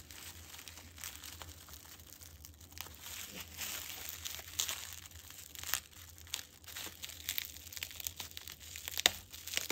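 Bubble wrap crinkling and crackling as fingers handle it and pick at tape stuck on it, with a few sharper crackles.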